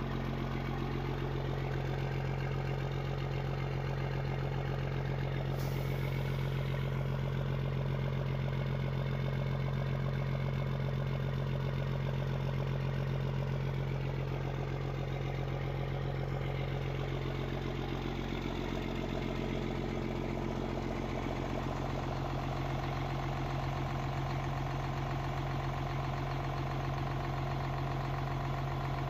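Engine idling steadily: a constant low hum that holds the same pitch throughout.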